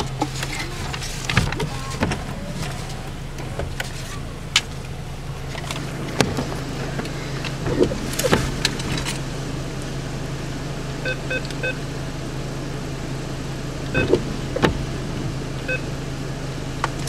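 Drive-up ATM keypad beeping as a PIN is keyed in: a quick run of short beeps partway through, then two single beeps, over a steady low hum and scattered clicks.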